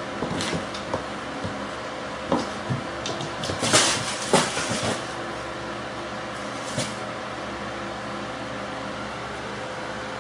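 Kittens wrestling on a hardwood floor: a string of soft knocks, bumps and scuffles, loudest and thickest about four seconds in, then dying away, over a steady background hum.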